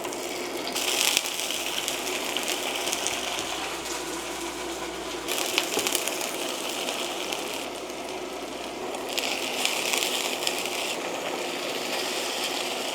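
Dried anchovies sizzling and rattling as they are stir-fried in a pan, the hiss swelling in several stretches of a few seconds each.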